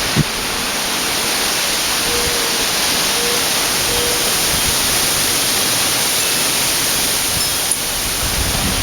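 Strong wind rushing through trees, the leaves making a steady loud hiss, with a low wind buffet on the microphone at the start and again near the end.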